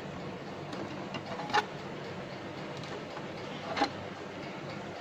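Two light clacks of plastic toy kitchenware being handled, about a second and a half in and again near the four-second mark, over a steady low hiss.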